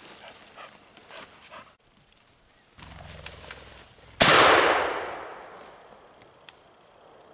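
A single muzzleloader shotgun shot about four seconds in, sudden and loud, its report rolling away over a second or two. Before it, footsteps rustle through brush.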